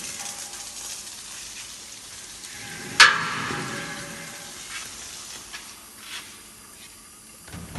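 A steady low hiss. About three seconds in, a sharp metallic clank rings briefly, followed by a few light knocks.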